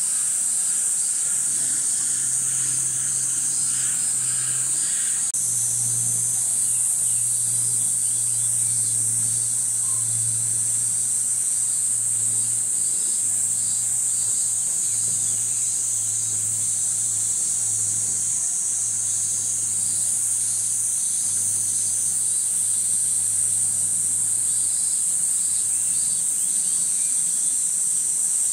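Cicadas buzzing in a steady, high-pitched chorus, with a low steady hum underneath.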